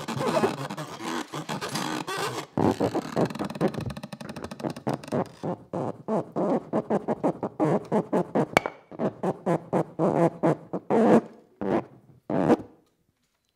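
A plastic credit card scraped with a thin stick, amplified through a contact microphone, making a harsh rasping. It starts as a dense continuous rasp, then breaks into separate rough strokes about three a second that thin out and stop shortly before the end.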